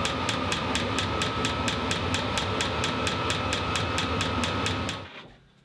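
Vevor diesel air heater running: its blower motor whirs with a steady whine while the fuel dosing pump ticks about four to five times a second. It cuts off suddenly about five seconds in.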